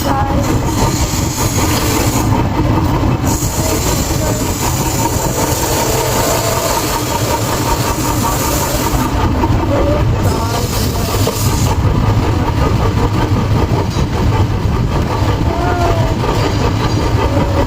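Heavy forging-shop machinery, such as a hydraulic forging press and its power unit, running with a steady, loud, low rumble.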